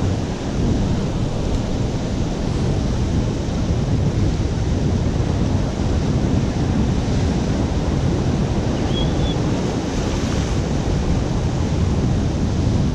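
Ocean surf breaking on a rocky shore, a steady rush of noise, with wind rumbling on the microphone.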